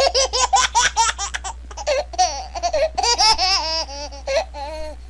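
A person laughing hard and high-pitched: quick cackles at first, then longer wavering squeals.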